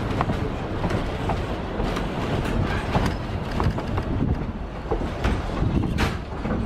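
Durango & Silverton narrow-gauge passenger train rolling along the track, heard from an open car: a steady rumble with irregular wheel clicks and clacks, and one sharper click about six seconds in.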